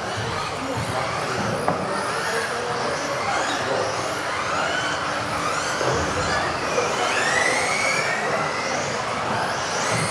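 Several electric 1:10 RC off-road buggies racing: overlapping high motor whines that rise and fall in pitch with throttle, with a knock about six seconds in.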